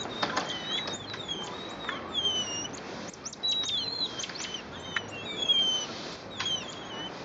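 Emperor tamarins giving many short, high-pitched chirps and sliding whistles, overlapping one another throughout, while they feed. A few sharp clicks come in among the calls.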